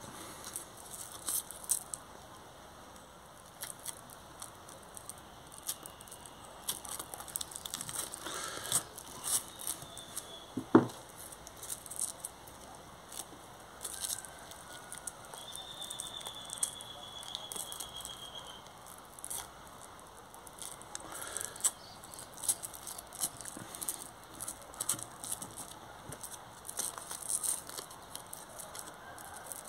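Light rustling, crackling and scratching of hands handling and pressing hook-and-loop strips onto an orbital sander's base pad, with one sharp knock about eleven seconds in and a faint high squeak lasting a few seconds around the middle.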